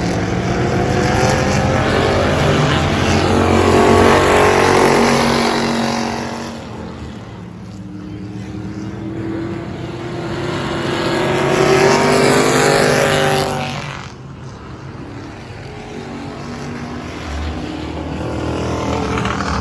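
Race car engines passing on the track, swelling loud and fading away twice, about eight seconds apart, with a lower engine drone in between.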